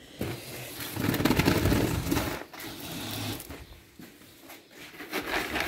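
Horse eating feed close by: a quick run of crunching chews for a couple of seconds, then quieter chewing.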